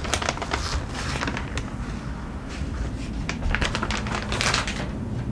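Thin plastic packaging bag crinkling and rustling as cycling bib shorts are handled and pulled out of it, in irregular clusters of crackles.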